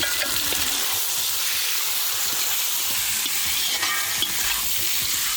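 Pieces of chicken sizzling steadily in hot oil with fried onion-tomato masala, being stirred in the pan.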